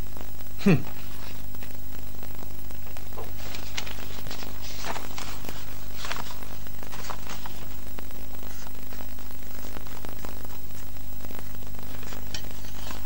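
Steady mains hum and hiss of an old television soundtrack. About a second in comes one short falling grunt, a man's "hmph"; after that there are faint paper rustles and pen scratches as a document is signed at a desk.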